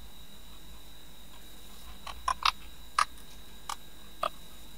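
Computer keyboard keystrokes: about six separate key clicks, irregularly spaced, beginning about two seconds in, over a faint steady high-pitched whine.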